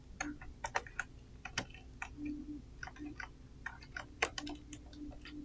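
Typing on a computer keyboard: scattered, irregular light key clicks.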